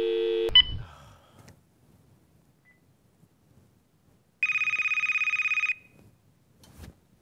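A steady two-note phone line tone from a cordless phone handset stops with a click about half a second in. After a few quiet seconds, the handset's electronic ringer trills once, a fast warbling ring lasting just over a second. A little handling noise follows near the end as the phone is picked up to answer.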